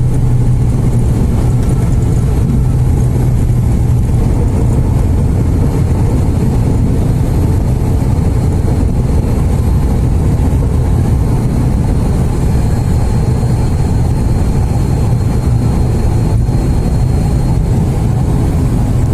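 ATR 72-600 turboprop's Pratt & Whitney PW127 engines and propellers running during landing, a loud, steady low drone with an even hum that holds its pitch.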